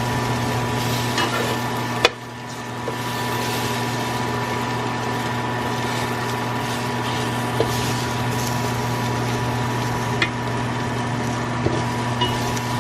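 Sliced onions and bell peppers sizzling in a hot frying pan, with a steady hum underneath. A sharp click about two seconds in, after which the sound briefly dips before settling back.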